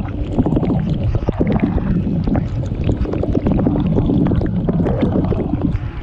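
Dishwasher running its wash cycle, heard from inside the tub: water spraying and splashing against the camera as a loud, muffled, continuous rush, with many small spattering ticks.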